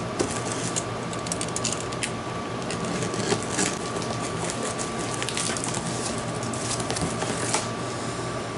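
Cardboard shipping box being handled and opened: a run of scratchy rustles and small clicks and taps.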